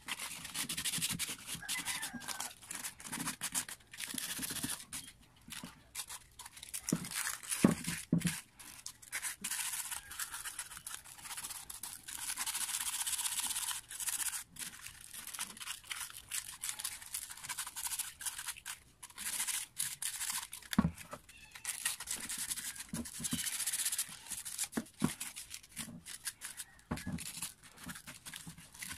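Hand scrubbing the parts of a dismantled Makita electric planer, mostly its plastic housing, with a pad to clean off dirt: a scratchy rubbing in quick uneven strokes. A few sharp knocks come from the parts being handled, the loudest about 8 s and 21 s in.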